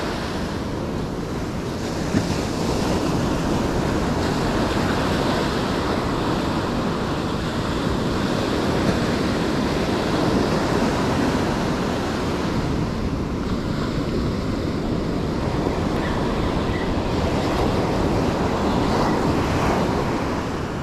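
Ocean surf washing steadily onto the beach, with wind buffeting the microphone.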